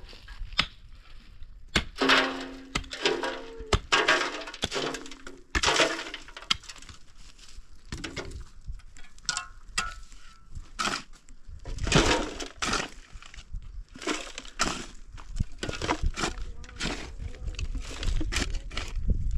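Irregular sharp knocks and cracks, something hard being broken apart, with a low rumble coming in about two-thirds of the way through.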